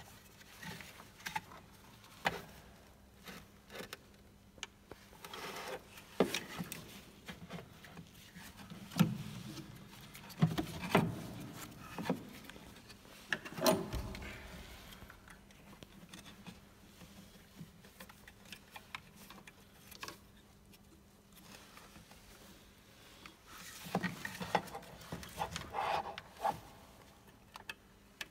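Gloved hands working on plastic parts in a car engine bay: irregular clicks, knocks and rustling as wiring connectors and a plastic air duct are handled, over a faint steady hum.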